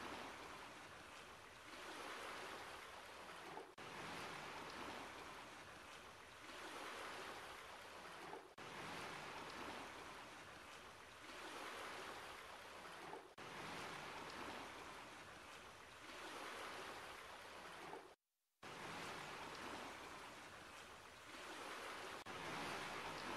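Faint rushing noise like surf, swelling and fading, repeated in stretches of about five seconds with short breaks between them, one of them a brief dropout to silence about eighteen seconds in.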